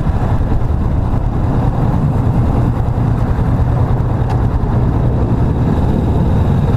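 Kawasaki Vulcan S motorcycle's parallel-twin engine running steadily while riding, with a continuous low rumble and road noise.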